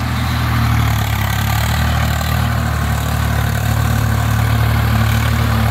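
Swaraj tractor's diesel engine running steadily while it pulls a tiller through the soil, a low, even engine note with no change in speed.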